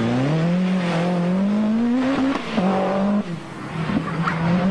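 Group B rally car engine accelerating hard, its pitch climbing steadily for about two seconds, then dropping at a gearchange and holding at steady revs, briefly easing off near the middle before picking up again.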